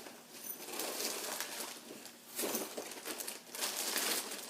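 Crinkling and rustling of gear being handled in a backpack pouch, coming in several spells.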